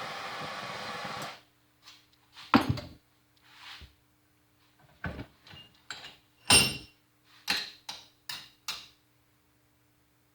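A steady running noise cuts off about a second in, followed by a dozen or so sharp knocks and clacks of hand tools and metal being handled on a work surface, two of them louder than the rest.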